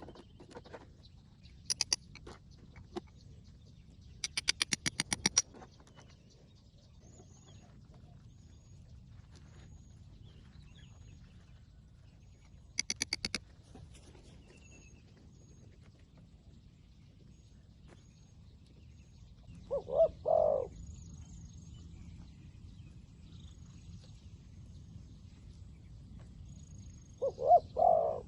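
Zebra dove cooing: two short bursts of quick rippling notes, about twenty seconds in and again near the end. Earlier come three bursts of rapid sharp clicking, and faint thin high chirps are heard throughout.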